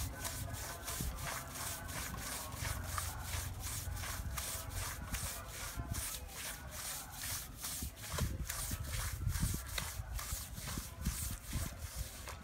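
Stiff plastic-bristled push broom scrubbing a wet rug on concrete in quick back-and-forth strokes, about three a second.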